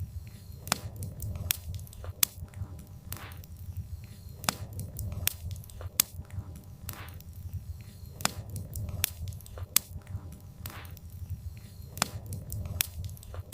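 Wood fire crackling, with irregular sharp pops and snaps over a steady low rumble of the burning logs.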